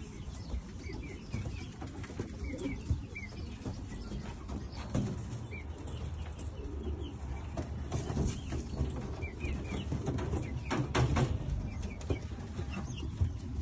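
Pigeons cooing in a low, continuous mumble, with clusters of short high chirps several times and a few sharp knocks or wing flaps.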